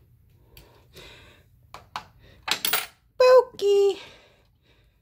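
Coins clinking and sliding on a glass surface, with a few sharp clicks. Then a child's voice sounds two held notes, the second lower than the first.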